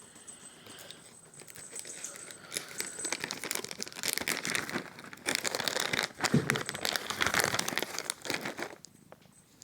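Plastic treat packet crinkling and rustling in irregular crackly bursts as it is handled. It starts about two seconds in, grows louder, and stops shortly before the end.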